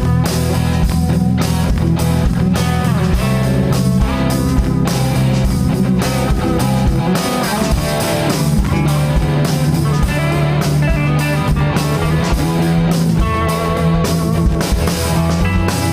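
Live rock band playing an instrumental passage: electric guitar lines over bass and a drum kit keeping a steady beat.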